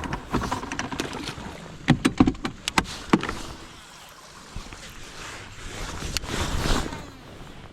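Sharp knocks and clicks of gear being handled on a fishing boat, several close together about two seconds in, followed by a rush of noise that swells and fades near the end.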